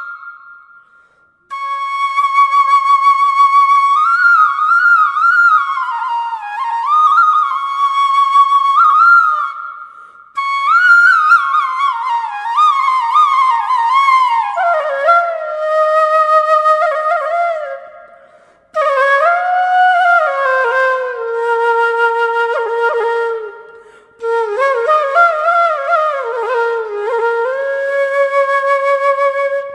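Solo flute playing a slow, ornamented melody with sliding pitch bends, in long phrases separated by brief pauses, one about a second in and others roughly every six to eight seconds.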